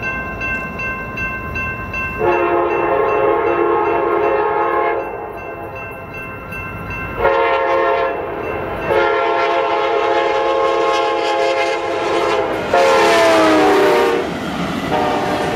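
Union Pacific freight locomotive's air horn blowing several long blasts as it approaches a grade crossing. The chord drops in pitch as the locomotive passes, then sounds once more near the end. A crossing bell rings steadily under it at the start.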